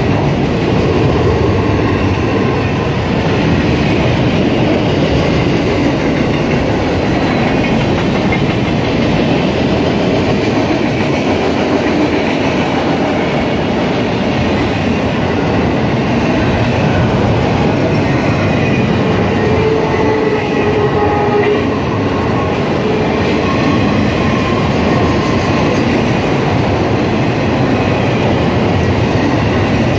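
Empty autorack freight cars rolling past at speed: a loud, steady rumble and clatter of steel wheels on the rails, with a few faint brief tones about two-thirds of the way through.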